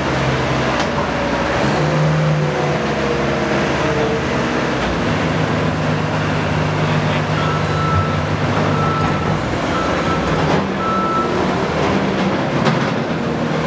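Compact track loader's diesel engine running steadily under load while its hydraulic Roto Fork rotating attachment tips a demolition cart and turns it back upright. A whine slides slowly down in pitch over the first few seconds, and a reversing alarm beeps repeatedly in the second half.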